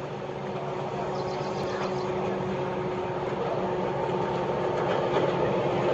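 Diesel locomotive hauling a passenger train on its approach, its engine running with a steady hum, growing louder as it draws near.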